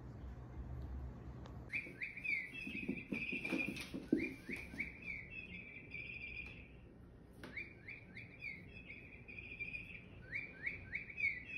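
High bird-like chirping in quick repeated phrases of rapid sweeping notes. It starts about two seconds in, pauses briefly after about five seconds, and resumes near the middle and again near the end.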